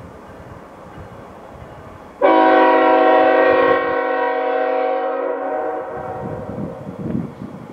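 Nathan Airchime K5HL five-chime horn on the lead locomotive, CN ES44AC 2951, sounding one long, loud blast that starts suddenly about two seconds in and fades out after about three to four seconds. The low rumble of the approaching diesel locomotives runs underneath.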